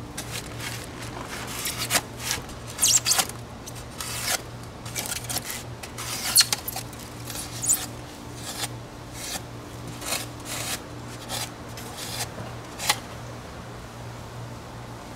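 Snap-off utility knife blade cutting Styrofoam, trimming small pieces off a foam model-airliner nose: a run of irregular, short scratchy cuts.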